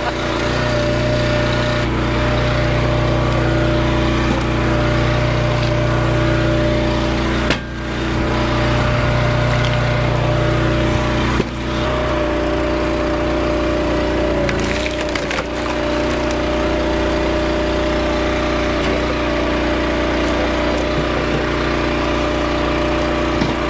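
Hydraulic log splitter's gas engine running steadily, its note shifting about halfway through as the ram works under load, with a few sharp cracks of wood splitting apart on the wedge.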